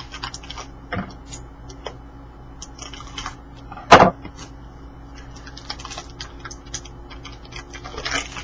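Trading cards being handled and flipped through: light clicks and rustles of card stock, with a sharp knock about four seconds in.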